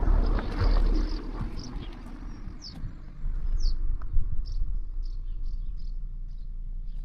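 Small birds chirping in short, repeated high calls, some sliding down in pitch. Under them is a steady low rumble, and a broad rushing noise fades away over the first couple of seconds.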